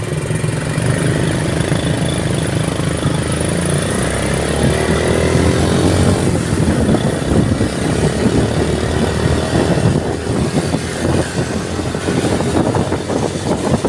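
Vehicle engine running while under way, its pitch rising as it speeds up about four to six seconds in, under a steady rushing noise.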